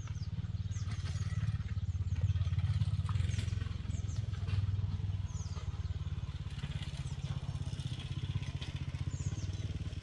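A small engine running steadily with a fast, even pulse, and short high chirps scattered over it.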